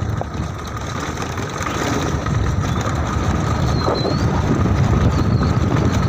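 A motor vehicle driving along a rough dirt road: steady engine and road rumble, getting louder about two seconds in.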